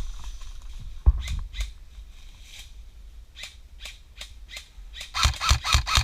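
Airsoft gun firing a fast string of shots, about eight a second, near the end, with scattered single sharp cracks earlier.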